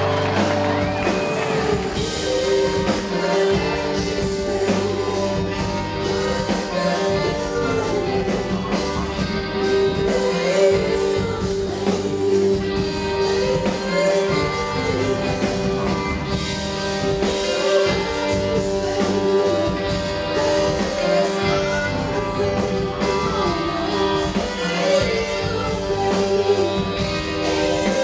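A rock band playing live, heard from the audience: drum kit and electric guitar with a singer's voice carrying the melody over them.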